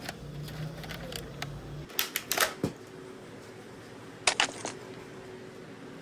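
Sharp mechanical clicks from handling an airsoft L96A1 spring sniper rifle: a few light clicks, then a cluster of louder clicks about two seconds in and a quick run of three more about four and a half seconds in. A low hum in the background cuts off about two seconds in.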